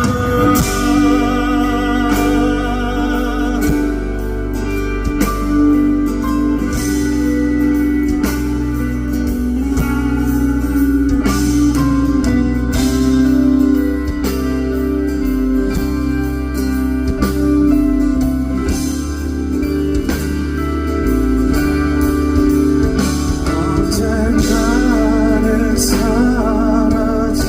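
The song's closing passage: band music led by guitar, with a wordless sung line.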